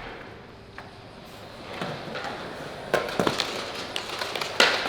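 A faint background, then scattered short, sharp knocks and clicks from about the middle on, several close together, with a louder knock near the end.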